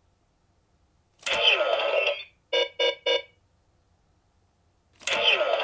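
Electronic chiming sound effects: a click followed by about a second of bright ringing tones, then three quick beeps, and another click with ringing tones near the end.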